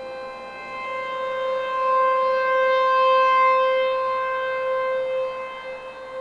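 American Signal T-128 outdoor warning siren sounding a steady tone at one constant pitch in a test. The sound swells to its loudest about midway and fades again.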